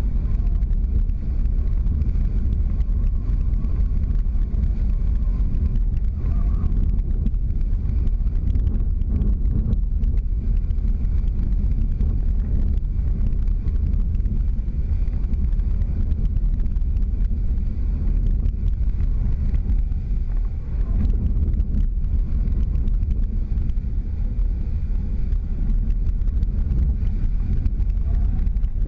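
Steady low rumble of wind buffeting a GoPro action camera's microphone while kiteboarding at speed.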